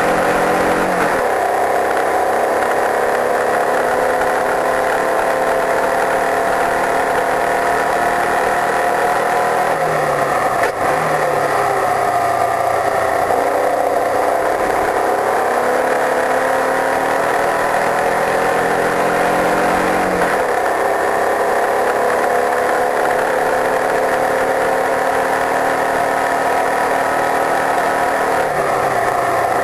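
Open-wheel race car engine heard from an onboard camera, running hard around a circuit. Its note climbs and falls as the car accelerates and slows for corners, and the revs drop sharply about a second in, around ten seconds, around twenty seconds and again near the end.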